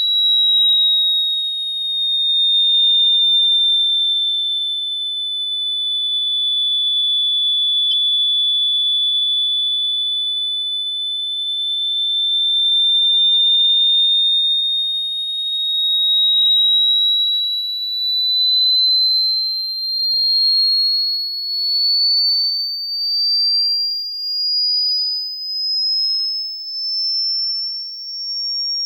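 A synthesized high-pitched pure tone that sags slightly in pitch, then glides slowly upward through the second half. Its loudness swells and fades in slow waves, and the waves come faster near the end.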